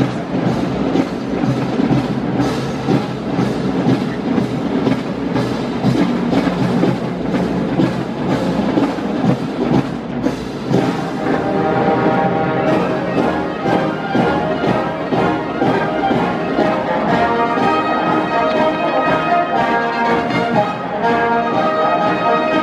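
High school wind band playing: a driving percussion beat leads, and about halfway through sustained brass chords come in over it.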